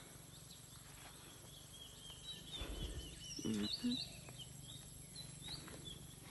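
Birds calling over steady outdoor background noise, with a quick series of repeated high chirps in the middle. A low bump and a short low sound come about three seconds in.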